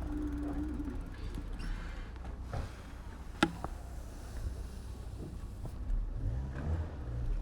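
Street traffic and road rumble heard from a moving bicycle, with one sharp click about three and a half seconds in and a vehicle's engine humming low near the end.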